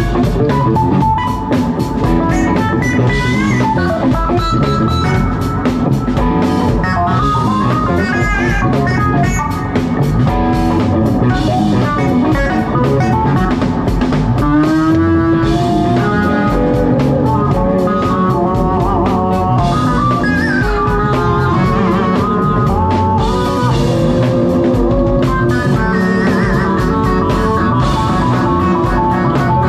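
Live electric band playing: electric guitar, electric bass, keyboards and drum kit, with a lead line of sliding, bent notes over a steady beat.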